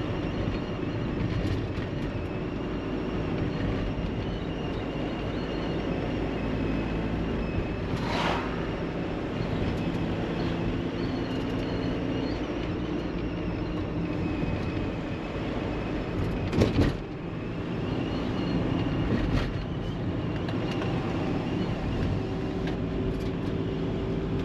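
Road and engine noise heard inside a VW Caddy van driving on a bumpy road: a steady rumble broken by a few sharp knocks from the jolts, the loudest about two-thirds of the way through.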